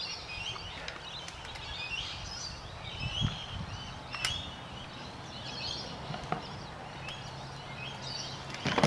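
Small birds chirping throughout, with a few light knocks, and near the end one loud crack of a rattan sword striking a shield.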